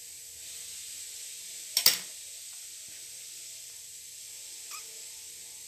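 Steady hiss of room noise with one short clatter of kitchenware about two seconds in and a faint tick near the end, while biscuit dough is shaped by hand beside a metal tray.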